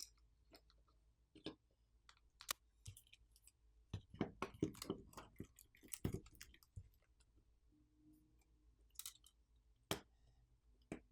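Faint, sporadic light clicks and taps of small smartphone parts being handled and fitted together during reassembly. There is a dense cluster in the middle and a few single clicks near the end.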